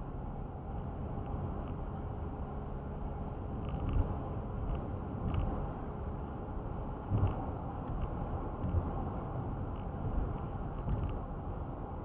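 Steady road and tyre noise heard inside a car cruising at about 55 mph on a highway, with several low thumps.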